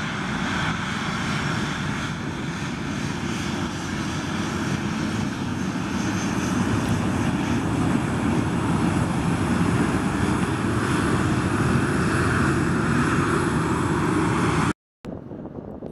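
Jet engines of an American Airlines Boeing 737-800 (CFM56 turbofans) running at taxi power as the airliner rolls past, a steady low roar that slowly grows louder. It cuts off abruptly near the end.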